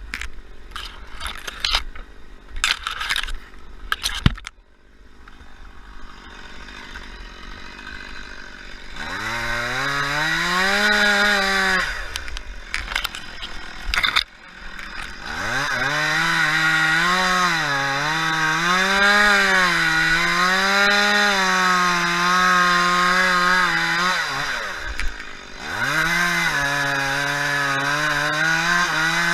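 Two-stroke chainsaw revving up about nine seconds in and running, its pitch rising and falling as it cuts into the palm, with a brief drop around the last few seconds before it revs again. A few sharp knocks sound in the first few seconds.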